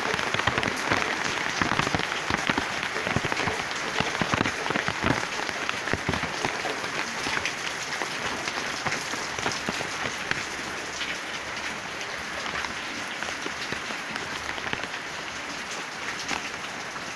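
Rain falling on plants and leaves: a dense steady hiss made of many separate drop hits, easing slightly in the second half.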